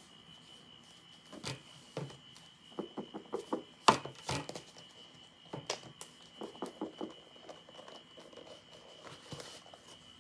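Packaging being handled and opened: a string of short clicks, taps and crinkles of cardboard and plastic, with one sharper knock about four seconds in. A faint steady high whine runs underneath.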